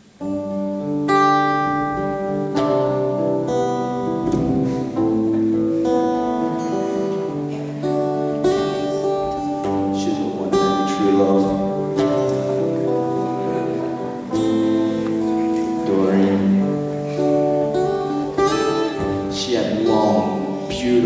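Acoustic guitar strumming chords and ringing notes as a song opens, coming in suddenly.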